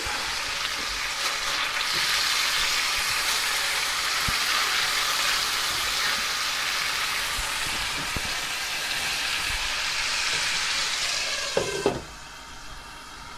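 Tilapia fillets sizzling steadily as they fry in their olive-oil and lime marinade in a pan on medium heat. About twelve seconds in, a glass lid goes on with a short knock and the sizzle drops to a quieter, muffled hiss.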